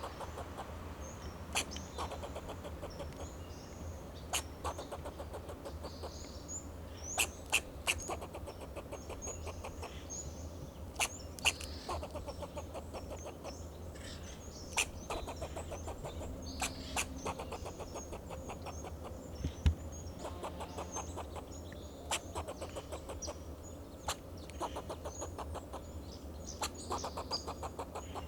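Fox squirrel alarm calls: sharp, clucking barks at irregular intervals, some in quick pairs, over a low steady rumble. A single low thump about two-thirds of the way through is the loudest sound.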